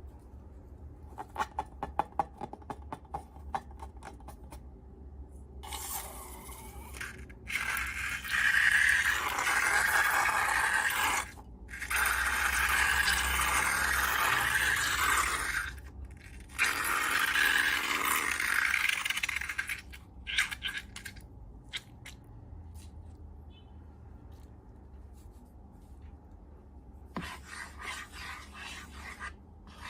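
Slime and balloon handling. It starts with a run of small crackling clicks, then three long, loud scraping hisses of a few seconds each, then scattered faint clicks, with more clicks near the end.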